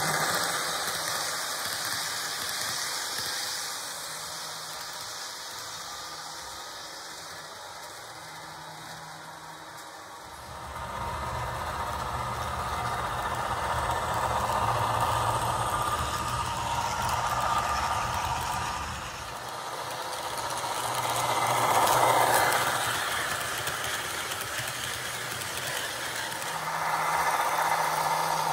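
Sound-decoder diesel engine sound from HO scale Rail Runner model locomotives running along the track. About ten seconds in it turns louder and deeper, with slow swells after that.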